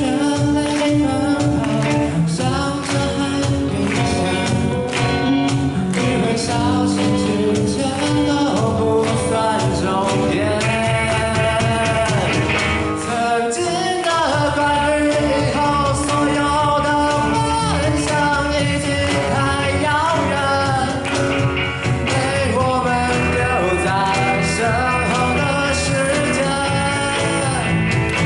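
Live band playing a pop-rock song, a singer over guitars and drums with a steady beat.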